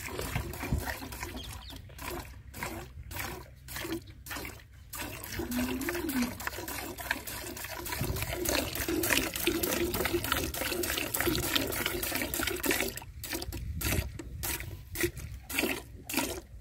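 A cow being milked by hand: milk squirting into the pail in quick rhythmic streams, with a few short pauses.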